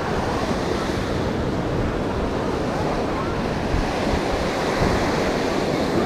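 Ocean surf washing onto a beach, a steady, even noise of breaking waves, with wind buffeting the microphone in an uneven low rumble.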